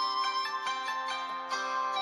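Background music: a light instrumental melody of separate notes.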